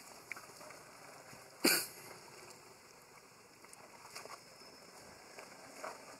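Long-tailed macaques wading in a shallow pool: a faint outdoor background with one short, sharp noise about a second and a half in and a few fainter ticks later.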